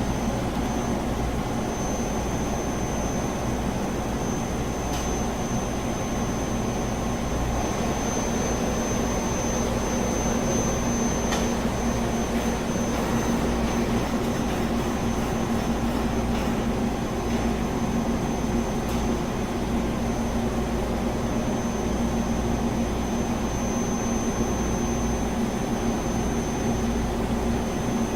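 Olympia CNC boring mill running: a steady machine hum with a thin, high, constant whine over it and a few faint clicks.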